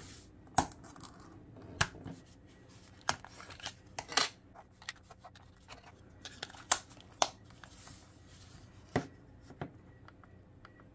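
Irregular sharp plastic clicks and light handling noise as two AAA batteries are fitted into a Buzz TV BT400 remote's battery compartment and its buttons are pressed.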